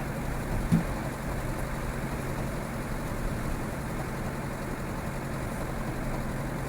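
Land Rover Defender 110 running on the road, heard inside the cab as a steady low engine drone, with a single clonk a little under a second in.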